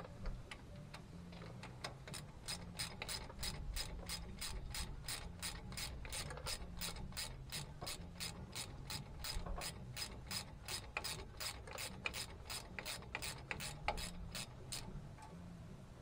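Hand ratchet clicking as it is cranked back and forth, an even run of about three clicks a second that starts about two seconds in and stops shortly before the end.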